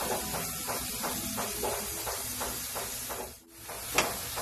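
Steady hiss of beef and mushrooms sizzling in a stainless steel pan. The sound drops out briefly near the end, then comes a single sharp click.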